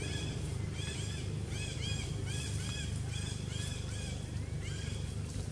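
Short, high-pitched arched chirping calls repeating several times a second, some overlapping at different pitches, over a steady low rumble.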